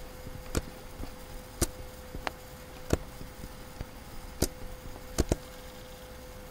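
Computer mouse buttons clicking, about seven sharp clicks at irregular intervals, two in quick succession a little after five seconds, over a steady low electrical hum.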